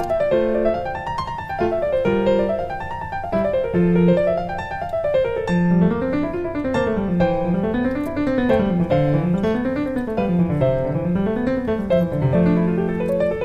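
Background piano music: quick runs of notes climbing and falling over and over, over a lower line of notes that moves up and down as well.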